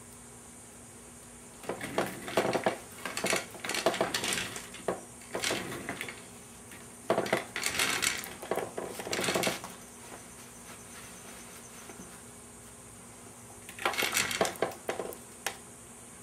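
Small metal parts clinking and rattling as they are handled, in three bursts of quick clicks separated by quiet pauses.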